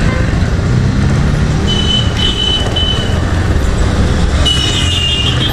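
Motorhead X-Torque 250's air-cooled single-cylinder engine running steadily at low speed under the rider. Thin high-pitched beeping from the surrounding traffic comes in twice, about two seconds in and again near the end.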